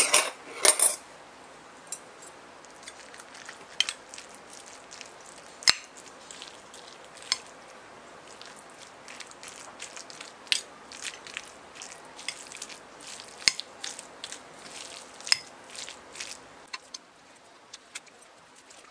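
Stainless-steel spoon and chopsticks mixing kimchi fried rice on a ceramic plate: irregular clinks and scrapes of metal on the plate, the loudest cluster right at the start, over a faint steady hiss.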